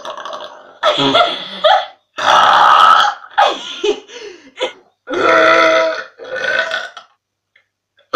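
A young woman burping: a run of about five separate voiced burps, each under a second long, with short gaps between them.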